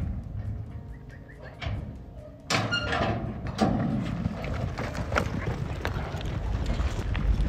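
A metal roping chute clangs open about two and a half seconds in as a steer breaks out, then horses gallop after it across the arena dirt in a run of hoofbeats.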